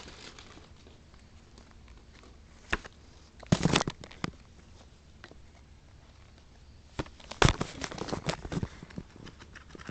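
Trading cards being handled: short scattered taps and rustles as cards are slid and flipped, with the loudest clusters about three and a half seconds in and again about seven and a half seconds in.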